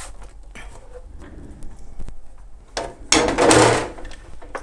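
Plastic case of a Royal 202 typewriter being pried off its clip tabs with a screwdriver: small clicks and scrapes, then a knock and a louder scraping slide about three seconds in as the shell comes free.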